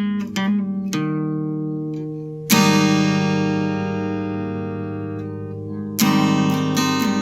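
Acoustic guitar music: a few picked notes, then a strummed chord about two and a half seconds in that rings out and slowly fades, and the playing picks up again near the end.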